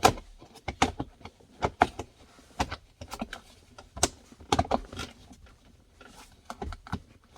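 Irregular plastic clicks, taps and rattles as a car's centre-console trim cover is handled and pressed back into place over tucked-in wiring.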